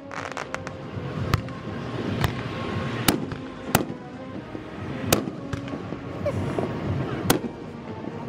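Aerial firework shells bursting overhead: a string of sharp bangs, irregularly spaced about a second apart, the strongest about three and five seconds in.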